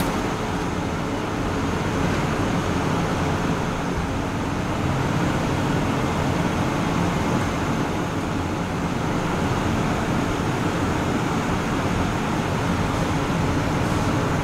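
Steady roar of a commercial kitchen's ventilation and extraction fans, an even noise with a faint hum in it.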